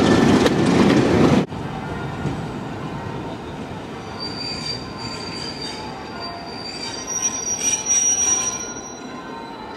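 A loud diesel train at close range for about a second and a half, cut off abruptly. Then quieter rumble of a train on the move, its steel wheels squealing against the rails in thin, steady high tones from about four seconds in until near the end.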